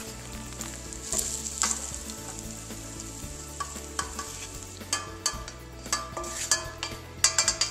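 A spoon scrapes and clinks against a metal skillet as cooked, crumbled sausage is pushed out into a saucepan of simmering tomato sauce. A steady sizzling hiss runs underneath, with a cluster of sharp clinks near the end.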